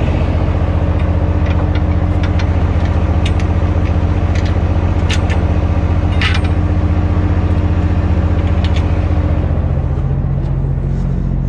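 Straight-piped diesel engine of a Kenworth C500 truck idling steadily up close, with an even rapid pulse. A few sharp crunches from footsteps on packed snow are scattered through it.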